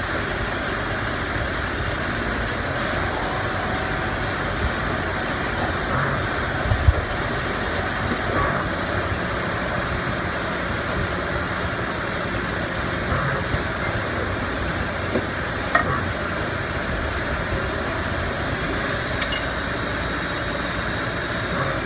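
Miyano BND-34C3 CNC lathe running through a machining cycle: a steady mechanical running noise from the spindle and cutting, with a few short clicks and knocks scattered through it.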